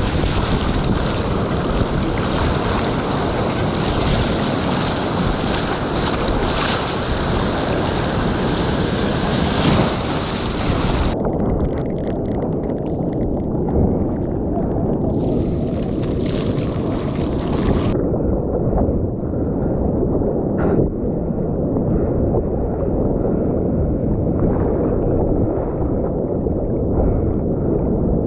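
Breaking waves and foaming whitewater washing around, heard right at the water's surface: a steady loud rush of surf with spray hiss. About eleven seconds in the sound turns muffled, the hiss briefly returns, and from about eighteen seconds on only a dull low wash of water remains.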